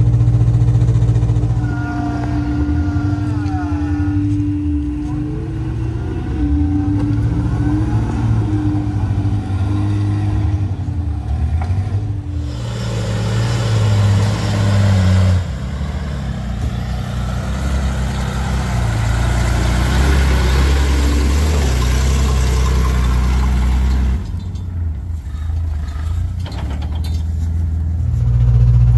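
Off-road trucks' engines running and revving under load while climbing a steep dirt trail, with the pitch rising and falling as the throttle changes. The sound changes abruptly several times as the footage cuts between vehicles.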